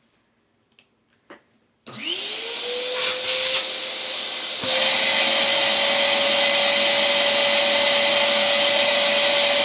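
Vacuum cleaner switched on about two seconds in, its motor whine rising as it spins up and then running steadily; a little under five seconds in the sound steps up louder and stays there.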